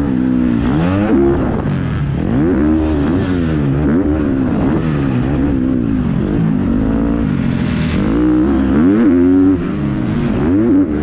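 Motocross dirt bike engine being revved up and down on the track, its pitch rising and falling about once a second as the rider works the throttle over the jumps.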